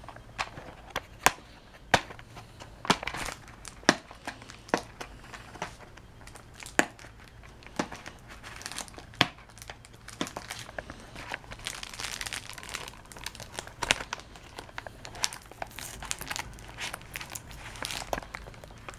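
Plastic bubble mailer crinkling and a small cardboard product box being handled, with many sharp clicks and taps scattered throughout and a longer spell of rustling about two-thirds of the way in.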